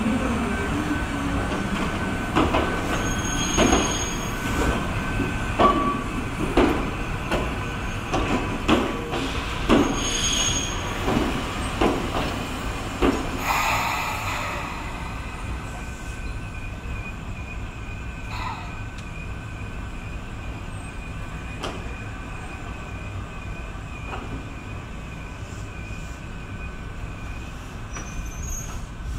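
Electric train wheels clacking over rail joints and pointwork, a sharp clack about every half second or so, for roughly the first half. After that comes a quieter steady running rumble with a faint high wheel squeal.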